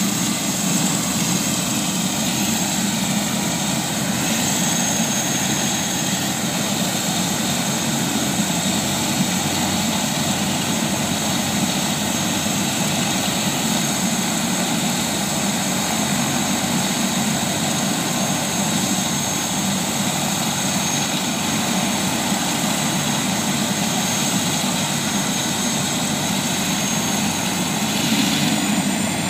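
Airbus AS350 Écureuil light helicopter running on the ground before takeoff: a steady turbine whine over the rotor noise. Near the end the whine rises in pitch as the engine spools up.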